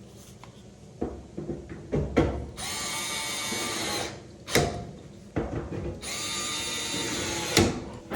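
Cordless power screwdriver driving screws, two runs of about a second and a half each with a steady motor whine. Knocks and clicks of the bit and dryer panel come between the runs.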